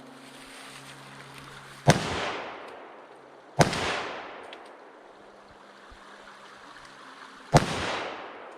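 Three gunshots, each followed by a long echo that fades off. The first two come less than two seconds apart and the third comes about four seconds later.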